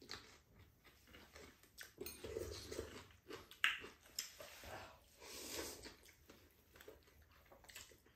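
Noodles being slurped and chewed: irregular soft mouth sounds, with a sharper slurp about three and a half seconds in.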